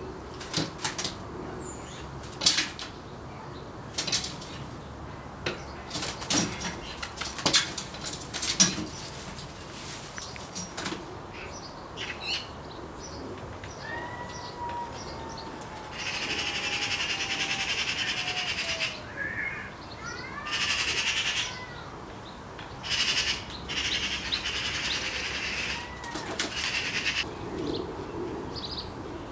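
Fledgling magpie trapped in a glass greenhouse, flapping about inside. For the first ten seconds or so there is a run of sharp knocks on the glass and metal frame. After that come several harsh stretches of noise, each a second or two long, and a faint falling whistle about halfway through.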